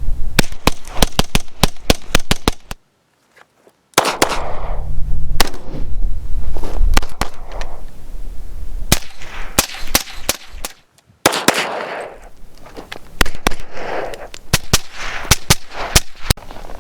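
Many sharp pops and cracks in quick, irregular succession, mixed with gusty noise and broken by two short dead silences.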